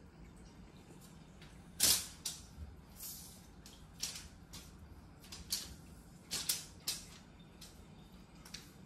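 Scattered light taps and short scrapes on a laminate floor from a wand cat toy's lure being flicked and dragged about and a kitten scampering after it. The loudest tap comes a little under two seconds in.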